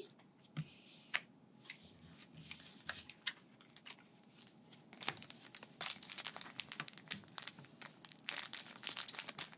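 A foil Pokémon booster pack crinkling and crackling as it is handled and worked open. The crackle gets denser and busier from about halfway in. Before that there are only a few light scattered clicks and taps of cards being set down.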